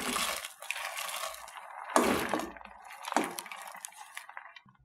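Soaked papa seca (dried potato pieces) pouring out of a dish into a pot of sauce, a gritty rattling rustle, with a few sharp knocks of the dish or spoon against the pot about two and three seconds in.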